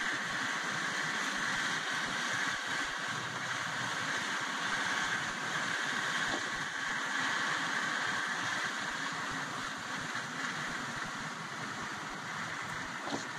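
Steady road noise inside a car's cabin while driving on a snow-covered road: a constant hiss of tyres and engine.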